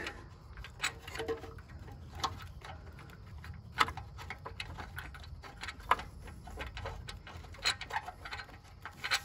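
Faint, irregular small clicks and ticks about every second or two as a loosened oxygen sensor is unscrewed by hand with an oxygen-sensor socket on a long extension.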